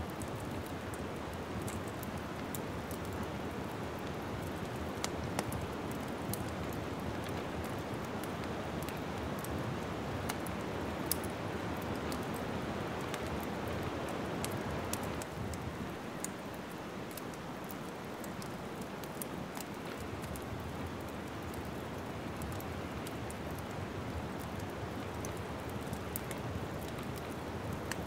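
Wood fire crackling in a fireplace: a steady hiss of flames with scattered sharp pops and snaps, softening slightly about halfway.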